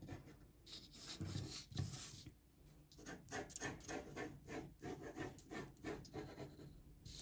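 Pencil drawing along the edges of a sheet of card to make a border: a run of short scratchy strokes with a brief pause about two and a half seconds in.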